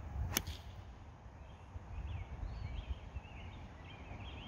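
Iron club striking a golf ball cleanly: one sharp click about half a second in. Birds chirp faintly after it over a low steady rumble.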